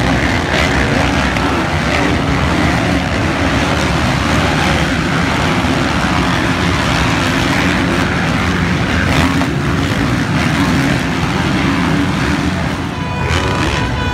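Motocross dirt bike engines revving and running hard around the track, a continuous loud, dense engine noise that dips briefly near the end.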